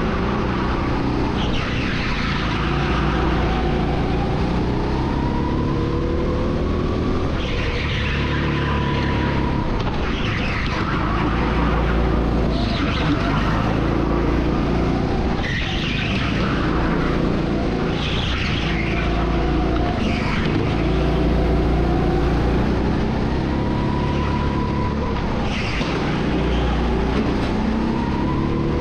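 Go-kart engine heard from the driver's seat, its pitch rising under throttle and dropping off again several times over a lap, with tyres scrubbing through the corners.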